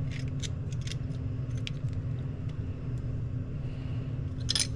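Hand tools tightening a blow-off valve on the truck: scattered metallic clicks and taps, a few in the first second or so, one more a little later, and a short cluster near the end. A steady low hum runs underneath.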